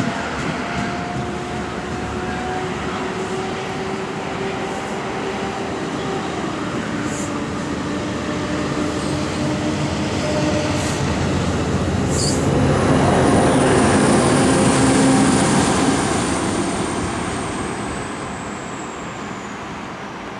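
NJ Transit push-pull commuter train of Bombardier MultiLevel bi-level coaches rumbling along the rails. The sound builds to a peak a little after the middle, then fades as the train pulls away down the line. A thin high whine glides slowly downward through the second half.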